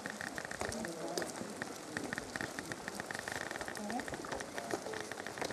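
Rain falling, with many small drops ticking close by and a steady patter.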